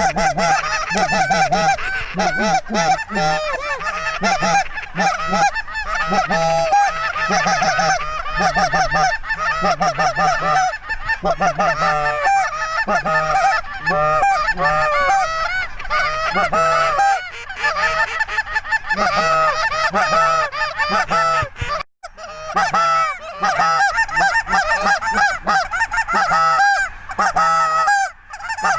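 Goose honking: many short honks overlapping in a dense, continuous chorus, broken by a momentary gap about 22 seconds in.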